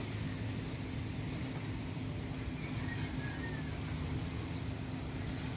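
A steady low motor hum, even and unchanging throughout, over a faint background hiss.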